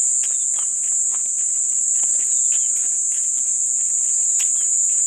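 A steady, high-pitched drone of insects. Irregular footsteps on a dirt path and a few short falling chirps sound over it.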